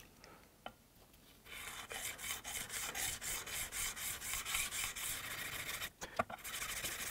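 Steel chisel back being lapped on a 1200-grit diamond sharpening plate: short back-and-forth strokes give a gritty rasp about three times a second. It starts about a second and a half in and stops briefly with a click near the end.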